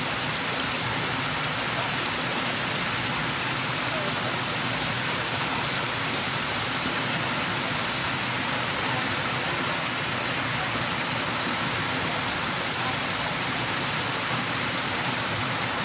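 Small waterfall pouring over a low stone step into a shallow rocky pool, a steady splashing rush of water heard close up.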